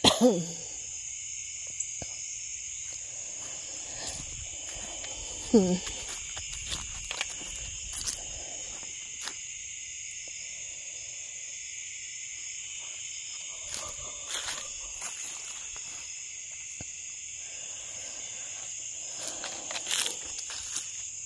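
Steady chorus of insects trilling in a high, unbroken drone, with faint scattered clicks and one short sound falling in pitch about six seconds in.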